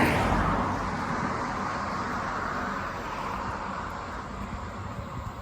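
A passing road vehicle's rushing noise, loudest at the start and fading steadily as it moves away.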